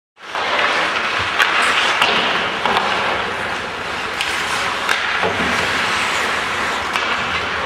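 Ice hockey play heard from the stands: skate blades scraping and hissing across the ice, with several sharp clicks of sticks and puck. The sound cuts in just after the start.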